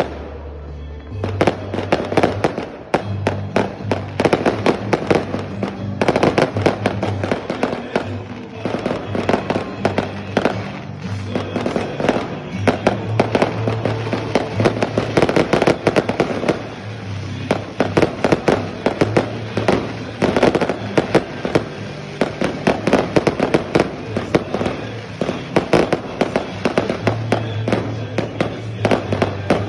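Fireworks going off without a pause: dense, rapid bangs and crackling from aerial shells bursting overhead.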